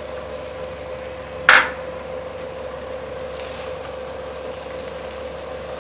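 Chicken curry frying faintly in a pan while a wooden spatula stirs it, with one short scrape about one and a half seconds in. A steady hum runs underneath.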